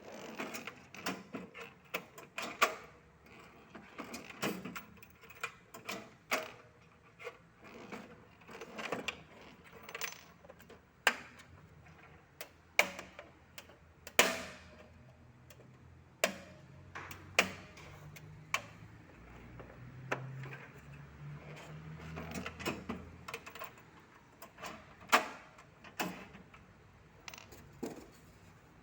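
A cash drawer and its packaging being handled: irregular clicks and knocks, a few of them sharp and loud, with rustling in between.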